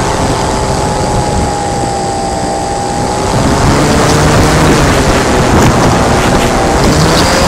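RC flying wing's motor and propeller whining through heavy wind rush on the onboard microphone in flight. The pitch shifts slightly, and the sound grows louder about three and a half seconds in.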